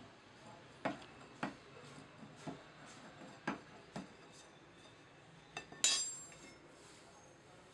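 A metal bar knocking against a metal moulding flask and the sand packed in it, about six irregular knocks, then a sharp metallic clank about six seconds in that rings briefly.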